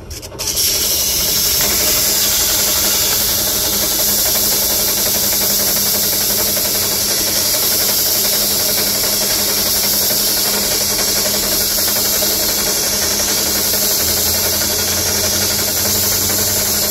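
Sandpaper held against the copper commutator of a starter armature spinning in a drill press: a loud, steady hiss of abrasive on copper over the drill press running, starting about half a second in. The commutator is being sanded down during a starter rebuild.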